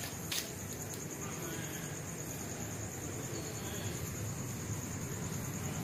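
Night insects chirping in a steady, finely pulsed high trill over a low background rumble, with one short click just after the start.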